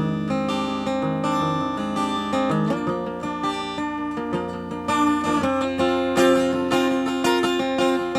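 Acoustic guitar strummed and picked, playing an instrumental break in a song with no singing.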